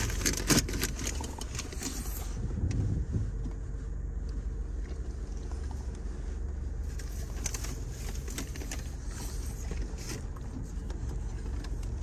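A car's engine running, a steady low rumble, with a few sharp clicks in the first second or so.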